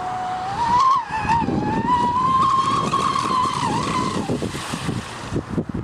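A radio-controlled model boat's motor whining at speed. The high whine climbs in pitch about a second and a half in, holds, then dips and fades out a little after four seconds, over wind rumble on the microphone.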